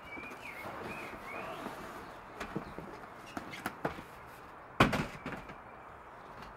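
Cardboard shipping box being lifted off a fabric-drawer storage rack: scraping and rustling of cardboard with scattered knocks, and one sharp thump a little before five seconds in.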